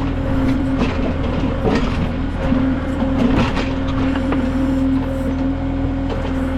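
Kubota M6060 diesel tractor engine running steadily under a Titan LW-6 backhoe, with a steady whine over the engine hum. Irregular clatter a few times as the backhoe digs in rocky ground.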